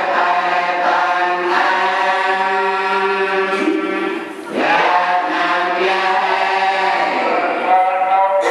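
Buddhist monks chanting a litany in unison, a group of voices holding long drawn-out notes. There is a short break about four and a half seconds in, and then the chant picks up again.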